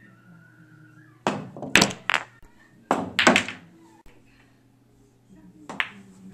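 Pool balls on a billiard table: sharp clacks of cue-tip strikes and balls knocking together, in two quick clusters of several knocks about a second in and about three seconds in, and one more knock near the end.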